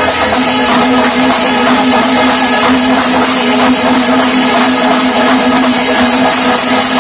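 Kerala panchavadyam temple ensemble playing: kombu horns hold a long steady note over dense drumming and jingling ilathalam cymbals. The horn note drops out for a moment right at the start.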